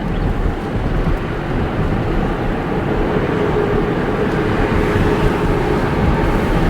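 Steady road and engine noise inside a moving car's cabin, with a faint humming tone rising out of it about halfway through.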